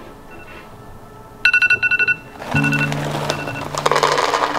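An electronic alarm beeping in rapid pulses on two pitches, then music comes in. Near the end, dry dog kibble rattles as it is poured into a bowl.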